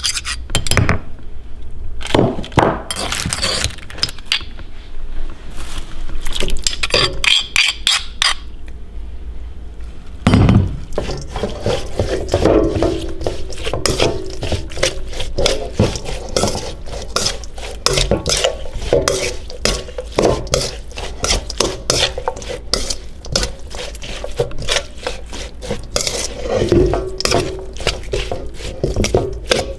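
Thai green papaya salad being pounded and tossed together: a pestle and spoon knock and clink against the mortar. The strokes are scattered at first, then from about ten seconds in come as a fast, steady run of several knocks a second.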